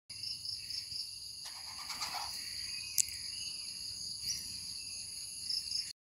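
Steady chorus of insects, several shrill tones at once, with a single sharp click about halfway through and a few short chirps; it stops abruptly near the end.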